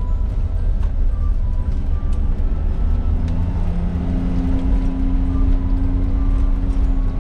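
Interior drive noise of a 1996 Suzuki Jimny JA22 on the move, its 660 cc turbo three-cylinder and the road giving a steady low rumble in the cabin. About three seconds in, a steady low hum rises over it.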